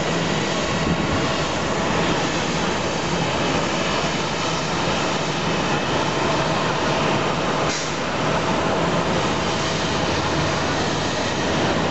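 Lufthansa Boeing 747-400's four turbofan engines on final approach, a steady rushing noise with a faint steady whine.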